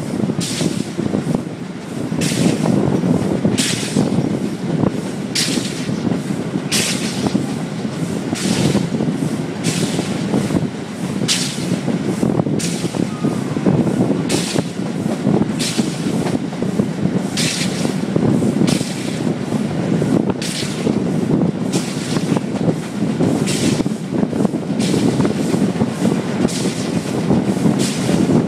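Steam locomotive's exhaust chuffing at a steady beat, a little more than one chuff a second, over the continuous rumble of the carriages running on the rails, heard from a carriage window behind the engine.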